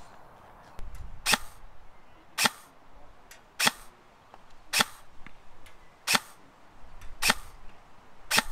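KWA KM4 airsoft electric rifle firing seven single shots, evenly spaced about one a second, each a short sharp crack.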